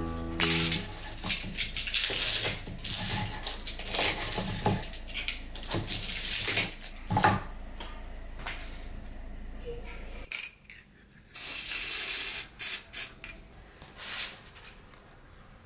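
Knocks and clatter of wooden clamping blocks and taped mould parts being lifted off and handled. A few seconds later, an aerosol spray can hisses in one long burst of about a second, then several short bursts.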